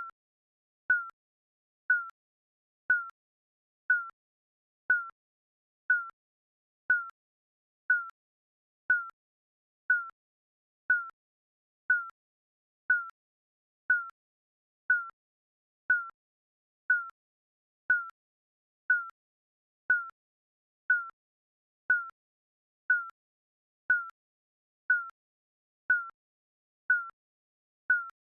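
Digital countdown timer beeping: one short, high beep each second, evenly spaced.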